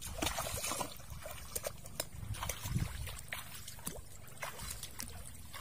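Bare feet splashing and sloshing through shallow muddy water, in irregular steps.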